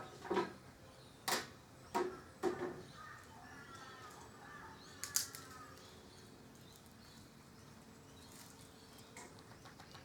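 A handful of sharp clicks and knocks, four close together in the first couple of seconds and one more around five seconds in, with faint chirping in the background.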